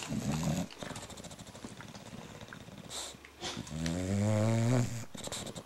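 Bulldog snoring in its sleep: a short rough snore at the start, then softer breathing, then a longer, louder snore with a buzzing tone from about three and a half to five seconds in.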